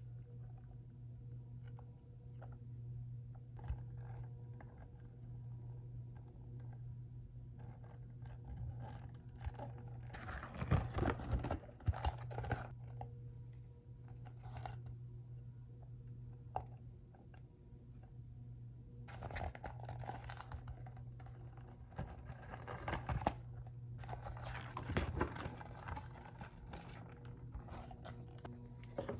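Paper and plastic packaging being handled: several bursts of rustling, tearing and crinkling, with small taps and clicks between them, over a steady low hum.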